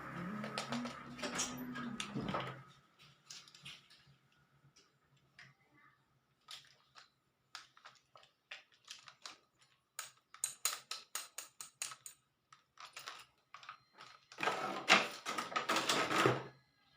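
Plastic toy parts and packaging being handled during an unboxing: scattered light clicks and taps, a quick run of clicks after the middle, and a burst of crinkly rustling near the end.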